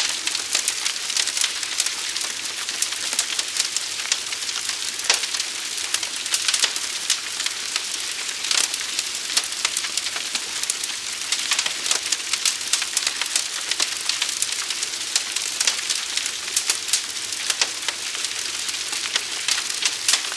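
Forest fire burning: dense crackling with scattered sharper pops over a steady hiss.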